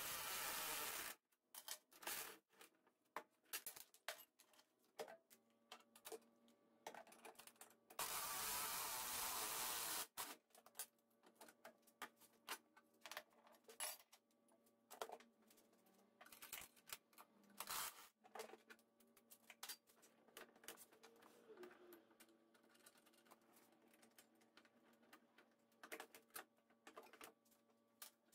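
Cordless drill running in two short bursts, about a second at the start and about two seconds some eight seconds in, backing 9/16 bolts out of a golf cart's roof frame. Scattered faint clicks between the bursts.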